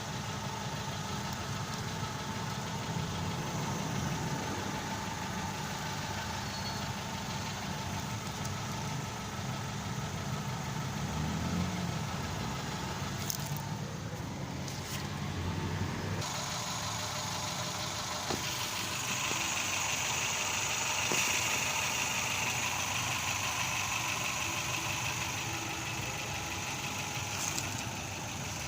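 Car engine idling steadily. About two-thirds of the way through, the low rumble drops back and a high, steady whine rises over the running engine.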